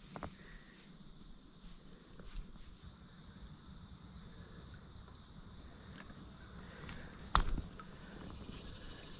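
A steady, high-pitched chorus of insects, with one sharp knock about seven seconds in.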